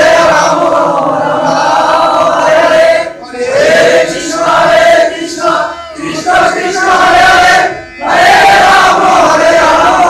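A group of men chanting a devotional song together, loud and sustained, with brief pauses between phrases about three and eight seconds in.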